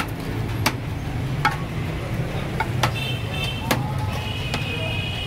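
Sharp clinks of a metal serving spoon against ceramic plates as rice is dished out, a handful of separate knocks, over a steady low street hum. A thin high tone sounds twice near the end.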